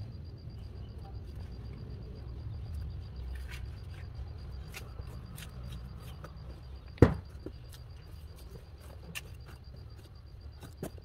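A stick poking and scraping into clumpy, damp soil in a styrofoam box, making scattered small clicks and crunches, with one sharp knock about seven seconds in. A low steady rumble runs underneath.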